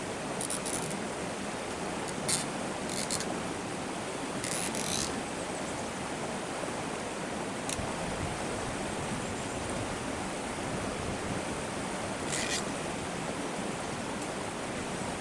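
Nylon cable ties zipped tight by hand: several short, high raspy ratchet pulls over a steady background hiss, with one sharp click about eight seconds in.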